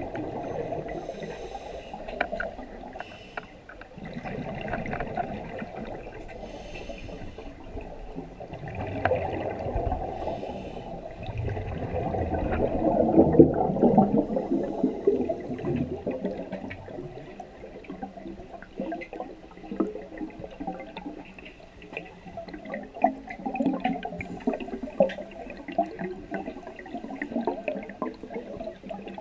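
Scuba diving breathing heard underwater: short hissing inhalations through the regulator and bubbling, gurgling exhalations, the biggest bubble release about 13 seconds in.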